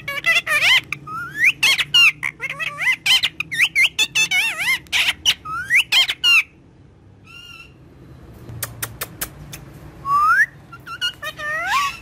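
Indian ringneck parakeet chattering: rapid squeaky whistles that glide up and down in pitch, mixed with clicks. The chatter thins to a few soft calls and clicks about halfway, then a loud rising whistle comes near the end, followed by more chatter.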